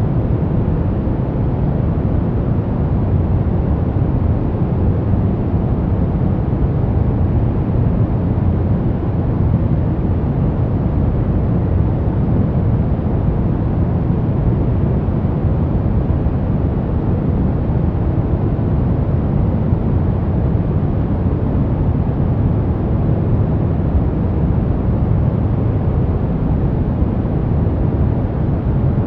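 Steady, unchanging noise track sold as white noise, with most of its energy low down, so it sounds deep and muffled rather than hissy.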